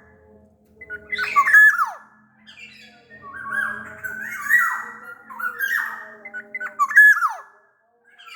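Black-naped oriole calling in a run of about five phrases, harsh squawking notes mixed with whistles that slide down in pitch.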